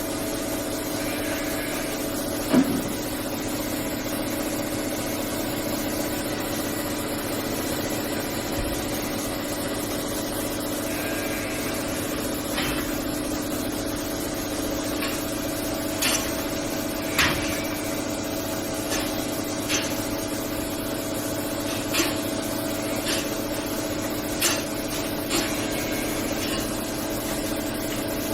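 A machine running with a steady hum, with a sharp knock early on and scattered light clicks and knocks in its second half.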